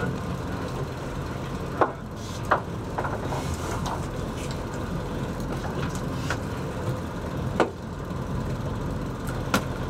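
Boat engine idling with a steady low rumble, with a few sharp knocks and clicks on deck scattered through it.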